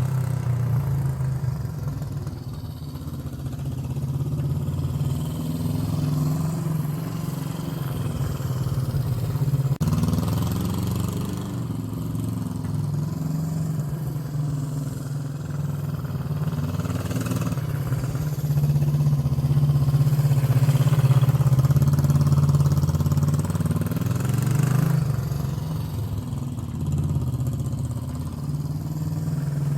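1972 Honda CB350's air-cooled parallel-twin engine running under way as the bike is ridden, its note rising and falling with the throttle, loudest for several seconds in the second half.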